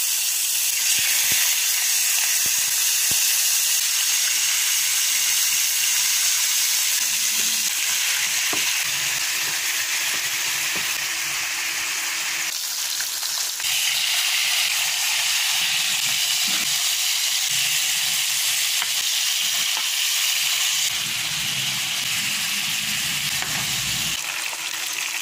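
Fish steaks sizzling in hot oil in a frying pan, a steady hiss throughout with a few faint clicks.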